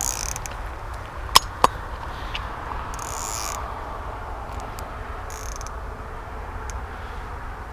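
Two sharp snaps about a quarter second apart, typical of a slingshot being shot, over a steady low rumble, with two brief hissy rustles later.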